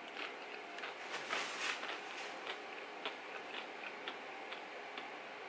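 Chewing a mouthful of chip topped with fish and melted cheese: faint, irregular crunches, most of them in the first couple of seconds, then sparser small clicks.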